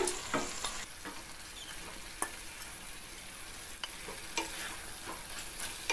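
Onion, capsicum and sauce sizzling faintly in a frying pan, with a few light knocks as cut idli pieces are dropped in and moved with a wooden spatula.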